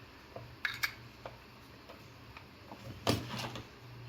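Light plastic clicks and knocks as the repaired LED bulb is handled and fitted for testing: a few separate clicks, the loudest about three seconds in, over a faint steady low hum.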